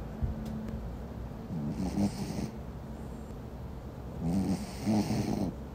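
A sleeping Pomeranian snoring, two snoring breaths about two and a half seconds apart, each a low buzzy rumble with an airy hiss.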